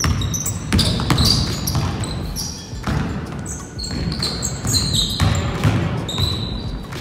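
Basketball bouncing on a hardwood gym floor during play, with the short high squeaks of basketball shoes on the wood scattered throughout.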